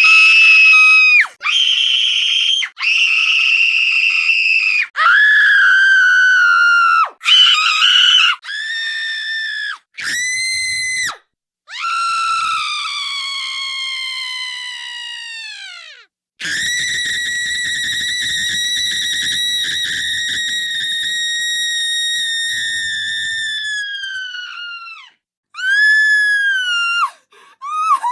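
A girl screaming, very high-pitched: a run of short screams of a second or two each, then two long screams, the first sliding down in pitch and the second held steady for several seconds before dropping off at the end.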